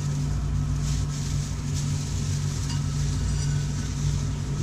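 Steady low hum with a faint, irregular hiss above it.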